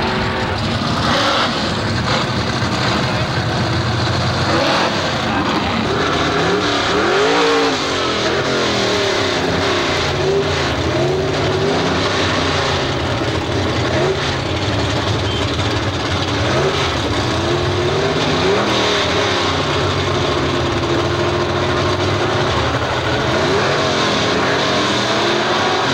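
Drag-racing cars' engines, loud. From about six seconds in, the engines of the cars at the starting line rev up and down again and again.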